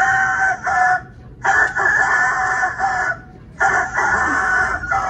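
A rooster crowing three times in a row, each crow about a second and a half long with short breaks between.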